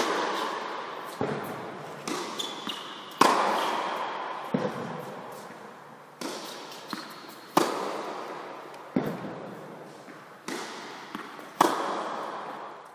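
Tennis balls struck hard with rackets during a baseline rally, a sharp hit about every one and a half seconds with ball bounces between them, each ringing with a long echo in a large indoor tennis hall. A few short, high shoe squeaks come from the hard court.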